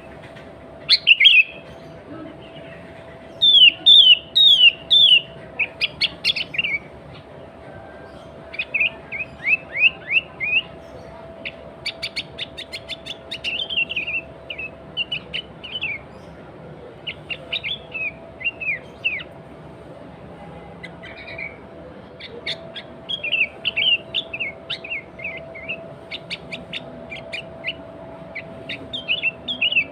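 Sooty-headed bulbul singing in its natural chattering song: repeated short phrases of quick whistled notes, each phrase a few notes long, with brief pauses between them.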